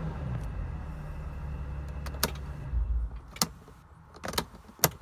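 Mercedes Sprinter van engine idling low after a stall-test run, with several sharp clicks in the second half.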